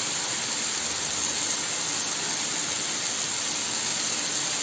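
Cluster beans sizzling in a hot iron kadhai as they are dry-roasted, the water cooked off: a steady, even hiss.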